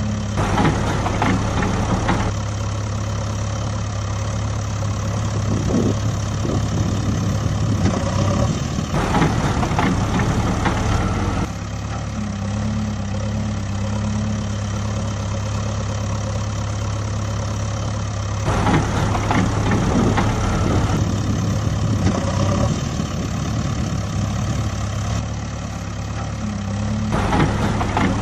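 Engine idling as a steady low hum, with a rougher, louder passage of about two seconds recurring about every nine seconds like a repeating loop.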